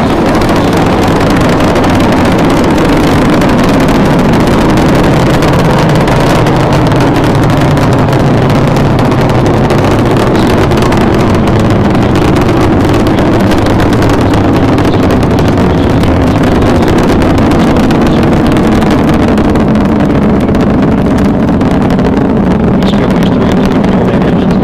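Space Shuttle Discovery's launch, heard as a loud, steady roar of its rocket engines during the climb after liftoff.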